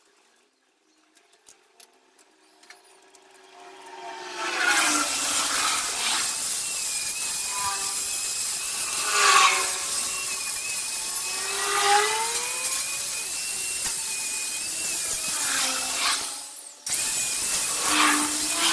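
Power tool grinding, with a steady high whine over rough noise, starting about four seconds in and cutting out briefly near the end.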